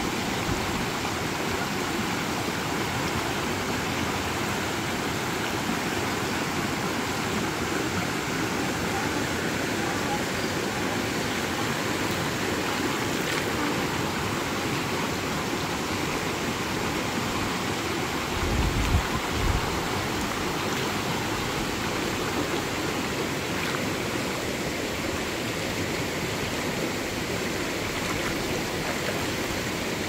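River water rushing steadily. A brief low thump about two-thirds of the way through.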